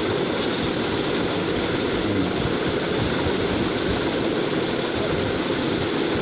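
Steady rushing noise of an air-moving appliance such as a room fan running, with a faint low hum underneath.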